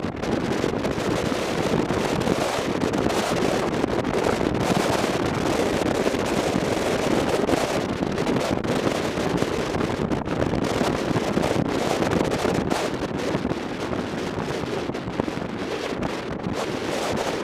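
Steady wind rushing over the microphone of a camera on a moving motorcycle.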